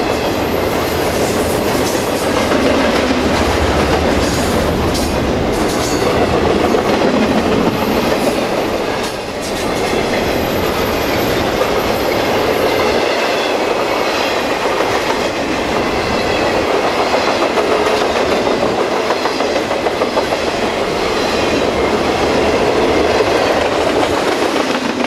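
A double-stack intermodal freight train's well cars roll past close by, making a steady noise of steel wheels on rail with repeated clicks over the rail joints.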